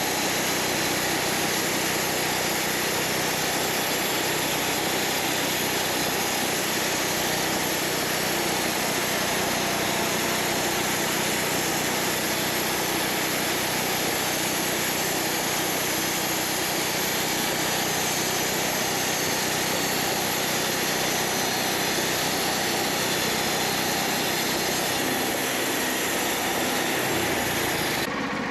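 Wood-Mizer LT40 portable sawmill running steadily, its engine and band saw making a loud, even mechanical noise.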